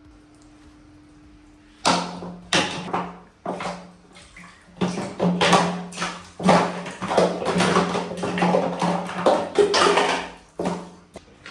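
Water splashing and sloshing in a plastic basin as a monkey paddles and slaps its hands in it, a quick, irregular run of splashes starting about two seconds in.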